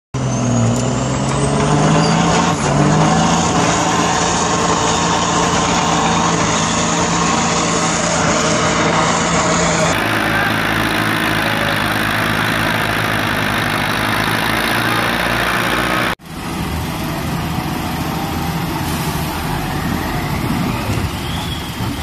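Heavy vehicle diesel engines running steadily. Each clip cuts sharply to the next, about ten seconds in and again about six seconds later.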